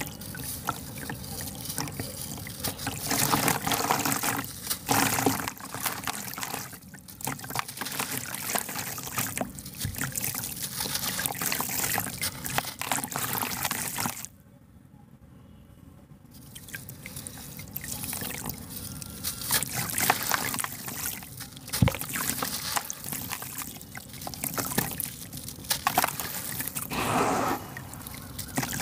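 A sand-and-cement block crumbled by hand into a bowl of water: gritty crunching and crackling as it breaks apart, with grains and pieces splashing and trickling into the water. There is a brief quieter pause about halfway through.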